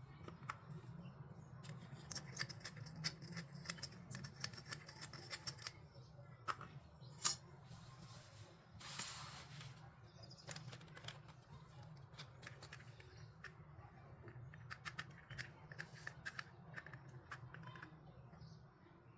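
Small plastic toy kitchen pieces being handled and unpacked: clusters of light clicks and taps, with a brief rustling scrape about nine seconds in, over a low steady hum.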